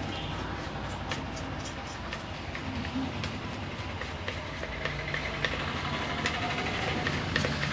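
Handling noise from a bare dot matrix printer mechanism, a metal frame with rails and a stepper motor, as it is lifted and moved: scattered light clicks and knocks over a steady background rumble.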